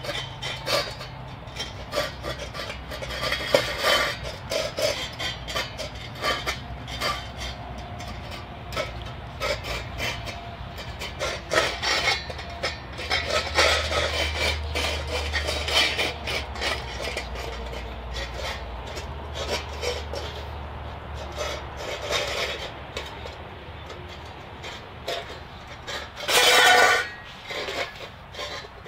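Irish Terrier puppies eating and licking from stainless steel bowls: irregular wet chewing and licking with frequent clinks and scrapes of tongues, teeth and bowls against metal. One louder burst of about a second comes near the end.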